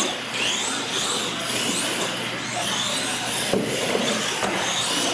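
Radio-controlled monster trucks racing, their electric motors whining up and down in pitch with the throttle over a steady hiss from the tyres and drivetrains. A sharp knock comes about three and a half seconds in.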